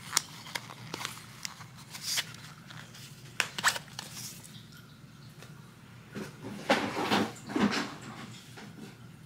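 Hands handling and setting down small product boxes on a tabletop: scattered light clicks and taps, with a busier stretch of handling noise about two-thirds of the way through.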